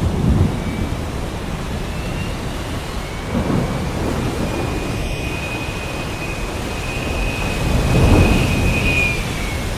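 Heavy rain falling steadily with rolling thunder, low rumbles swelling about three and a half seconds in and most strongly about eight seconds in. A faint high wavering whistle of wind runs over it.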